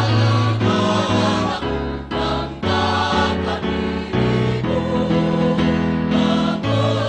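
Mixed choir singing a song in harmony over sustained accompanying chords and a steady bass line.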